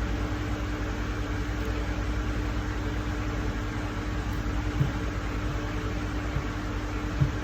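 Steady background hum of a running fan or air-conditioning unit, with a constant low tone, and a few soft short knocks about five and seven seconds in.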